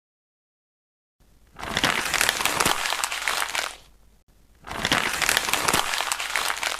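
Paper being crumpled by hand, crackling and crinkling in two bursts of about two seconds each, the first starting about a second and a half in.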